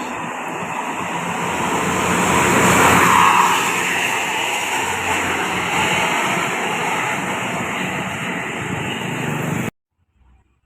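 A bus passing close by, its engine and tyre noise swelling to a peak about three seconds in and then running on steadily. The sound cuts off abruptly near the end.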